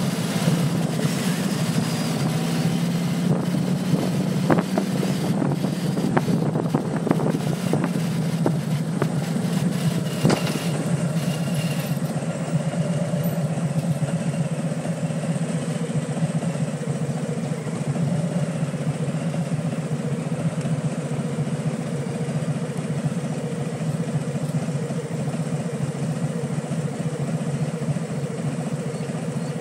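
Motorcycle engine running steadily at low speed, heard from on the bike. Wind rushes and buffets the microphone for the first dozen seconds, then eases off as the bike slows behind a car.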